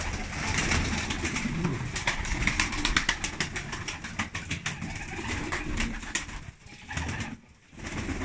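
Domestic pigeons flapping their wings in a loft as they fly down from their perches to feed, making many quick wing claps and flutters, with cooing underneath. The flapping briefly dies down about seven and a half seconds in.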